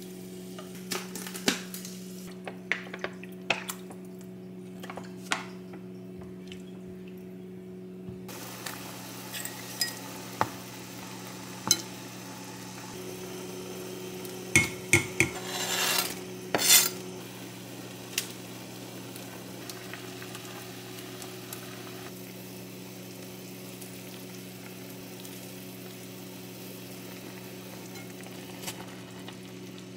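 Home cooking at the stove: utensils clinking and knocking against a pan and dishes, busiest about halfway through, over a steady low kitchen hum. A light sizzle of frying food sets in about eight seconds in.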